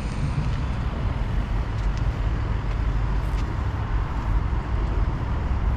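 Steady low roar of road traffic from the ring road close by.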